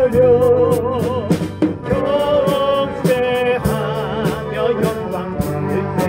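Small church band playing a hymn tune. A held lead melody with vibrato sits over sustained keyboard chords and regular drum beats.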